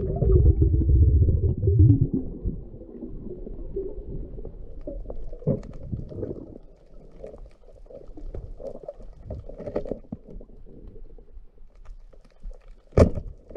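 Muffled underwater sound heard through a camera's waterproof housing: a loud low rumble of moving water for the first two seconds, then quieter crackling with a few sharp knocks, the loudest near the end.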